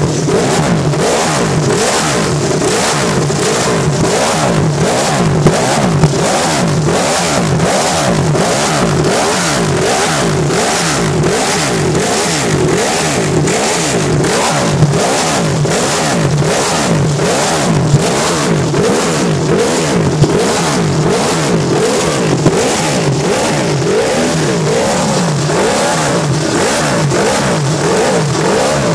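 Ducati Desmosedici MotoGP race bike's V4 engine running loud, its throttle blipped over and over so the revs rise and fall continuously. A few sharp pops stand out.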